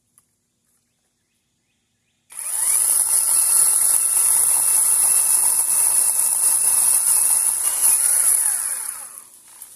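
Battery-powered chainsaw starting abruptly about two seconds in and cutting into a tree trunk from the underside, running loud and steady for about seven seconds before winding down.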